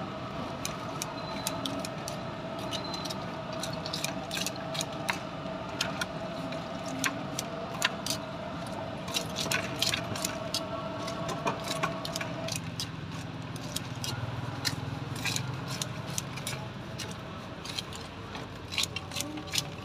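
Metal scissors snipping through crisp fried batagor in a plastic takeaway box: many irregular sharp clicks and crunches, over a steady background hum that partly stops about twelve seconds in.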